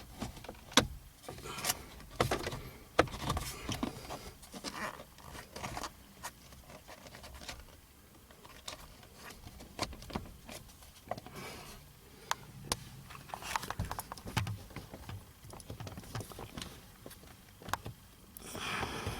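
Plastic steering column cover being handled and pressed back into place around the wiper stalk, with irregular clicks, knocks and scraping of the trim pieces.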